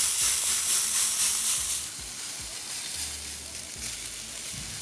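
Pork ribs in a hot smoker sizzling as they are sprayed with orange juice. A dense hiss is loudest for about the first two seconds, then dies down to a softer sizzle.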